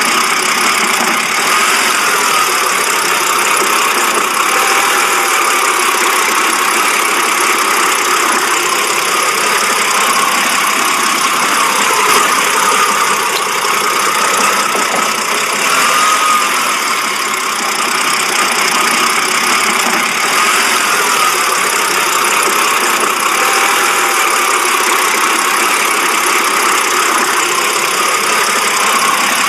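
BMW engine idling roughly, a steady running sound with a slight wavering unevenness, the sign of a rough-idle fault.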